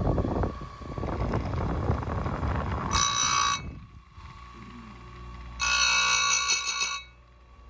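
Bench-mounted chainsaw chain grinder's spinning wheel grinding a chain cutter for about three seconds, a loud, dense, crackling scrape. It is followed by bright metallic ringing twice, the second about a second and a half long.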